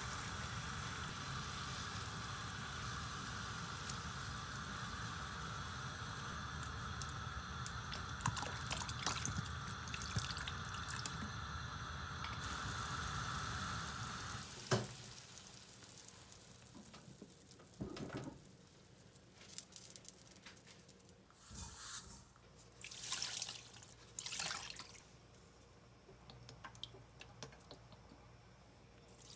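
Water boiling hard in a pan of blanching beef ribs on a gas stove, a steady bubbling that ends with a sharp click about halfway through. After that a tap runs in several short spurts as the blanched ribs are rinsed.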